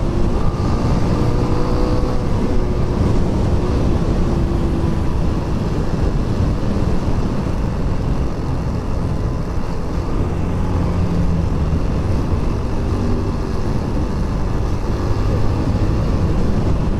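Motorcycle on the move: steady wind and road noise with the engine running underneath.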